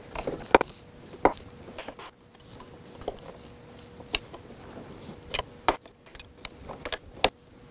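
Utility knife cutting and trimming the plastic dash housing of a Can-Am Spyder RT: irregular clicks, scrapes and a few sharp snaps as the blade works the plastic, over a faint steady hum.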